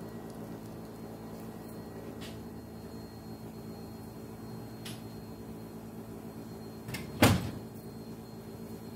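A steady low household hum, broken once about seven seconds in by a sharp knock or bang like a door or cupboard being shut.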